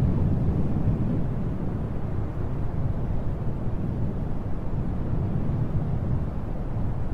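Low, steady rumble of wind blowing, swelling and easing slightly without any sharp events.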